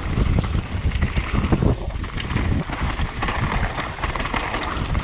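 Mountain bike riding fast down a dirt trail: tyres rolling over dirt and stones, with many short knocks and rattles from the bike over bumps, under heavy wind noise on the microphone.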